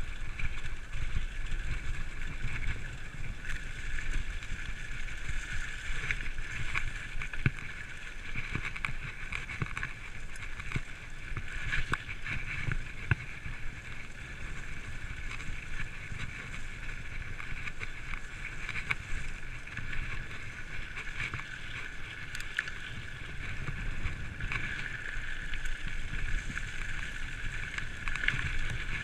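A full-suspension 27.5-inch mountain bike rolling over a rough grass and dirt trail: steady tyre and drivetrain rumble with wind on the microphone, and frequent short rattles and knocks as the bike goes over bumps.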